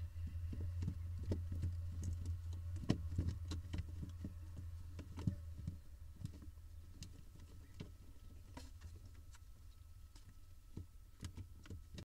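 Barn owl nestlings moving about inside a wooden nest box: irregular light taps, scratches and scrapes of feet and bodies on the floor litter and walls. A low steady hum runs under the first half and stops about six seconds in.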